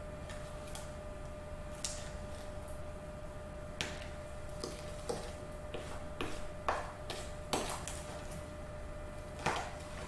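Spoon stirring thick chocolate chip cookie dough from a packet mix in a plastic tub: irregular scrapes and knocks of the spoon against the tub, about one a second, coming more often in the second half.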